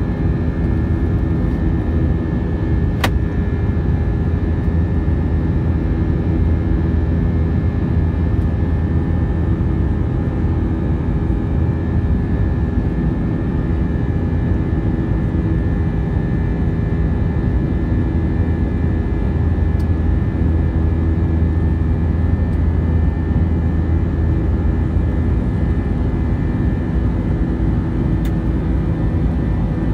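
Jet airliner cabin noise in the climb: the turbofan engines and airflow make a steady, loud low drone with several steady tones above it. There is one faint click about three seconds in.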